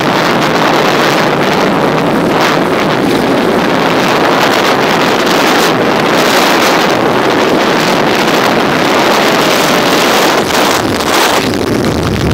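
Wind rushing over the microphone of a moving 70cc motorcycle, a steady loud noise, with the small single-cylinder engine, fitted with a double carburettor, running under it.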